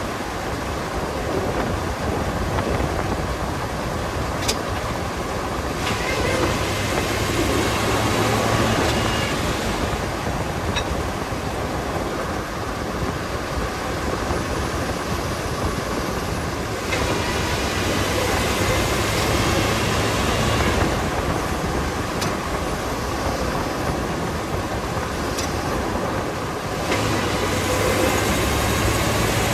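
Vehicle driving over uneven ground, heard close to the front suspension: steady road and running rumble that swells and eases every few seconds, with a couple of sharp pops. The pops come from the top of the right-front coil spring popping against its coil bucket seat on the Dana 35 front end.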